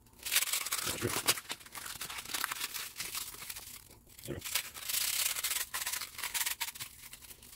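A small metal valve-rocker shim being rubbed around a roll of oiled 500-grit sandpaper to deburr and true it. The sound is a hissing, scratchy rasp in uneven strokes, with a short pause about four seconds in.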